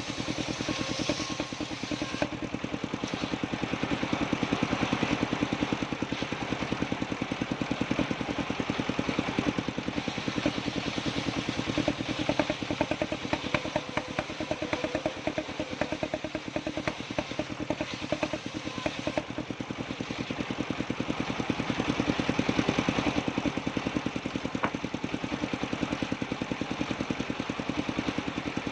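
Engine driving a circular sawmill running steadily with a rapid, even putter, its level swelling and easing a few times as it works.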